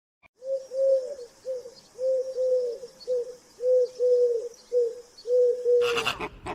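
A bird cooing in a run of short, even, arched notes, about two a second. Near the end a louder, harsher animal call cuts in over it.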